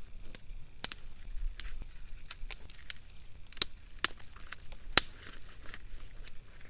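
Dry kindling wood snapping and crackling: about a dozen sharp, irregular snaps, the loudest a little after three and a half seconds, a little after four seconds and at about five seconds.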